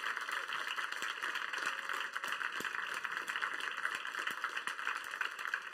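Audience applauding: steady, dense clapping of many hands.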